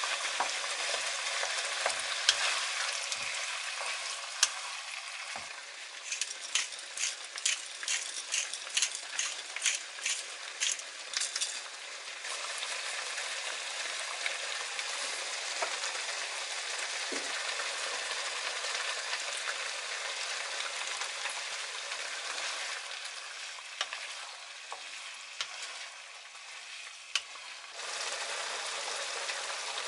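Tomato and sardine sauce sizzling and bubbling in a non-stick wok, stirred now and then with a wooden spatula. In the first half there is a run of quick regular clicks, about two a second, lasting several seconds.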